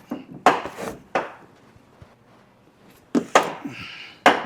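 Sharp knocks and clatter from tools and wiring parts being handled: a quick run of about four in the first second, then a couple more after a pause and one last one near the end.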